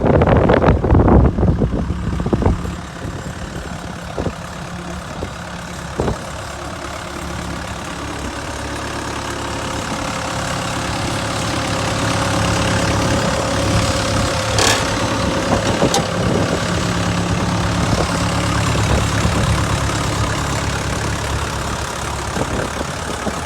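Case 580 backhoe's diesel engine running at idle, starting out louder and uneven for the first two seconds or so, then settling into a steady idle.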